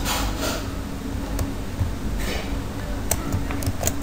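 A few sharp clicks from a computer keyboard and mouse as text is selected and copied, mostly in the second half, over a steady low hum.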